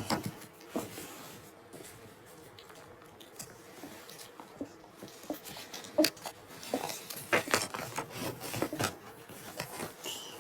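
Light taps, clicks and rustles of small toys being handled and moved about, most of them from about six to nine seconds in.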